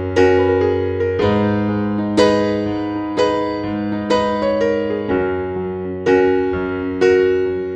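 Background keyboard music: piano-like notes and chords struck about once a second, each left to ring and fade.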